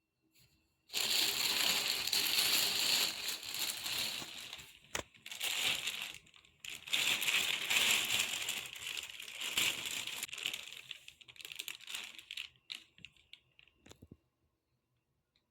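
Dry crinkling and rustling of something papery or plastic being handled, in several stretches of a few seconds with brief breaks, then a few light ticks near the end.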